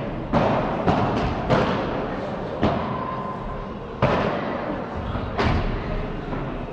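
Padel rally, the ball hit back and forth with rackets: about seven sharp knocks at uneven intervals, each with a short echo.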